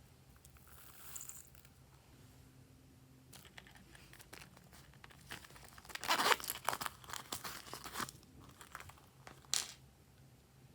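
Glossy slime being squished and pulled by hand, giving off scattered crackles, sticky clicks and small pops. They come thickest about six seconds in, and a single sharp snap follows near the end.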